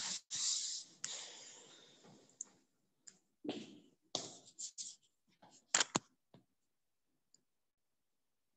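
Handling noise on the recording device's microphone: a rustling hiss for the first two seconds or so, then a run of clicks and knocks, the sharpest about six seconds in, as the device is picked up and moved.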